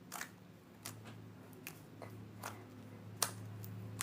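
Homemade glue slime with foam mixed in, squeezed and worked by hand, giving about seven sharp, irregular clicks and pops: the slime's characteristic popping noise, which is loud for a slime.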